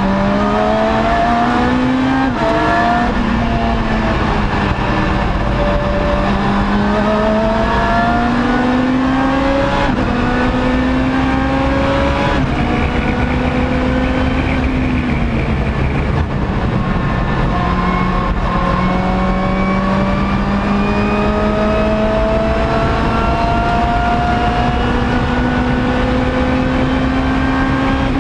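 Lotus race car's engine heard from inside the cockpit under hard acceleration, its pitch climbing in long pulls and dropping back at each gear change, over a steady rumble of road noise.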